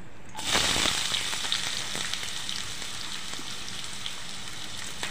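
Chopped onions and green chillies dropped into hot oil in a kadai: a sudden loud sizzle about half a second in, settling into steady frying with small crackles.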